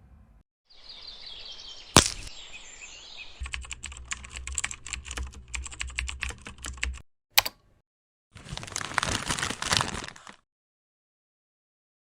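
A run of separate edited sound effects: a sharp click, then rapid irregular clicking like typing over a low hum, another single click, and a burst of crackling noise that cuts off suddenly.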